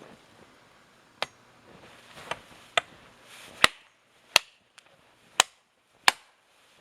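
A tool striking wood with about seven sharp, irregularly spaced chopping blows, the later ones louder.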